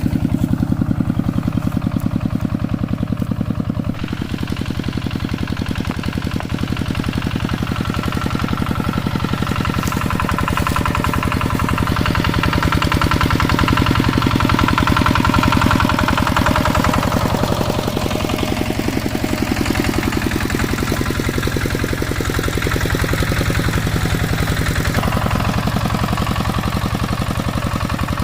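Hand tractor's engine running steadily with a rapid, even chugging; its note rises somewhat about halfway through and falls back.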